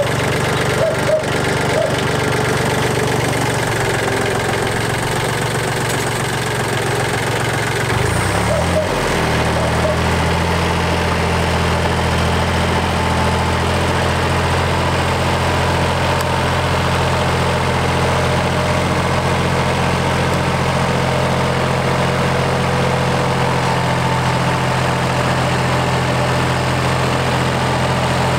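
Yanmar FX175 compact tractor's diesel engine running steadily under load while it drives a rotary tiller. About nine seconds in its note wavers briefly, then it settles and holds steady.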